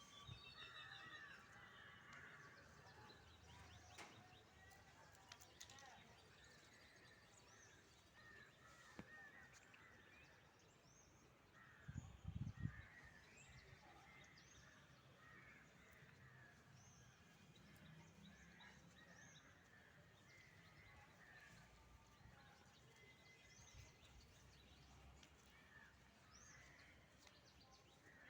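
Faint outdoor birdsong: many short chirps and calls scattered throughout. About twelve seconds in there is a brief low thump.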